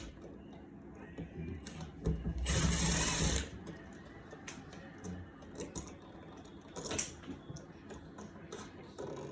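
Small power drill-driver running in one burst of about a second and a half, driving a switch mounting screw, with small clicks and handling knocks around it.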